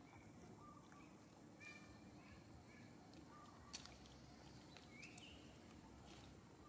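Near silence: faint outdoor background with a few faint short animal chirps, a faint rising squeak about five seconds in, and a single sharp click.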